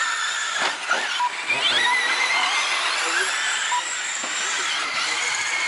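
Radio-controlled dirt oval late model race cars running laps, their motors whining high, the pitch rising as they accelerate out of the turn.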